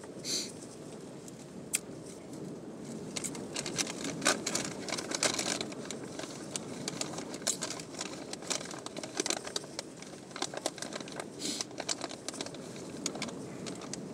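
Raindrops tapping irregularly on a car's windshield and roof, heard from inside the parked car over a steady low hum; the tapping thickens after a few seconds.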